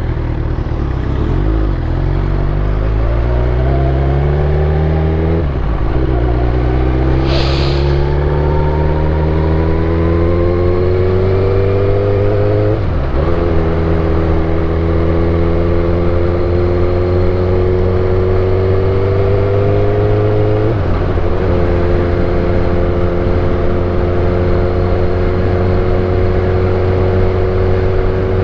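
Suzuki GSX-R1000 K8 inline-four engine under way, its pitch climbing slowly in each gear with three quick breaks for upshifts, then holding steady at a cruise. A short hiss about seven seconds in.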